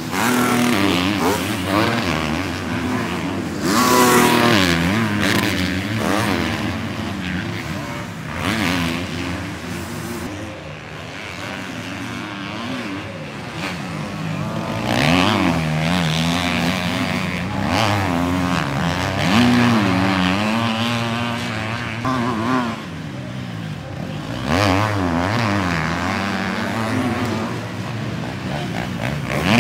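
250cc motocross bike engines revving hard and dropping off again and again as riders take jumps and corners, their pitch rising and falling with each burst of throttle.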